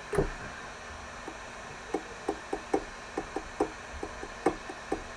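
Computer keyboard being typed on: a run of about a dozen short, irregularly spaced key clicks starting about two seconds in, after a brief low thump at the very start.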